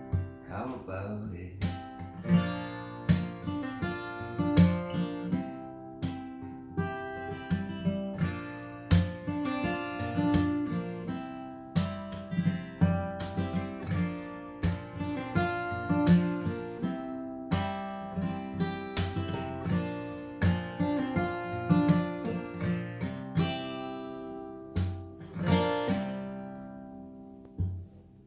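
Steel-string acoustic guitar played solo in an instrumental passage: picked notes and strummed chords ringing out one after another. Near the end a chord is left to ring and fade.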